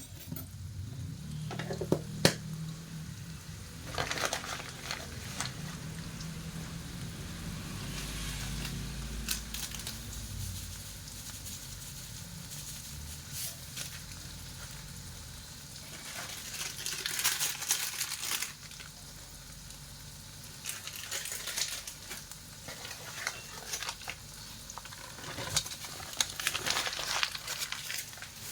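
Fried rice cooking in a pan: a steady sizzle of frying, broken by bursts of stirring scrapes now and then, most of them in the second half.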